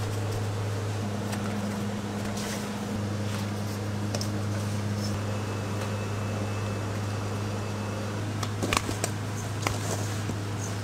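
Steady low hum of running kitchen machinery, with a second, higher steady tone over most of the stretch. A few light clicks and taps come near the end.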